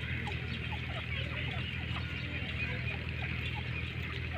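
Francolin hen and chicks giving short chirping calls, several a second, over a steady low hum.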